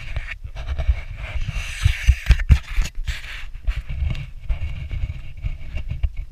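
Handling noise on a camera carried on a hand-held pole: a low rumble with many irregular thumps, and a faint hiss that swells in the middle.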